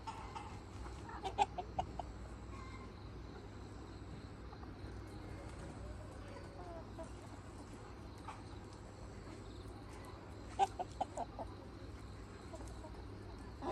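Free-range Mía chickens clucking: two short runs of quick clucks, one just over a second in and another about ten seconds in.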